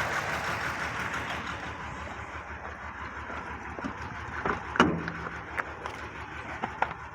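Nissan VQ35 V6 running on only three cylinders (bank 1, cylinders 1, 3 and 5), with the other bank switched off to cause a deliberate misfire. A light knocking can be heard. The engine noise fades and dulls over the first two seconds or so, and a single sharp knock sounds about five seconds in.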